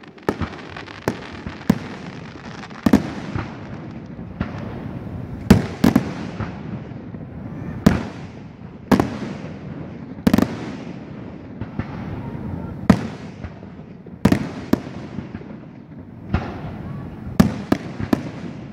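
Aerial firework shells bursting overhead: sharp booms about every second, some coming in quick pairs and triplets, each trailing off in a rolling rumble that fills the gaps between them.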